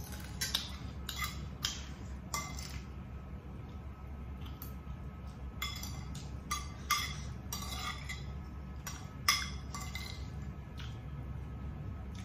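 Metal spoon clinking and scraping against a plate as the last of the food is gathered up, in irregular sharp clinks with a brief ring, the loudest about nine seconds in. A low steady hum runs underneath.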